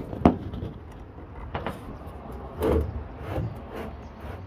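Handling noises from a plastic recovery board being shifted across a car's metal roof while a bolt through it is lined up with the hole: a sharp click about a quarter second in, then light scrapes and small knocks.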